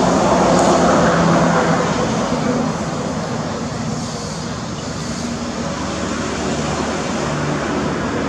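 Steady background traffic noise, louder in the first two seconds.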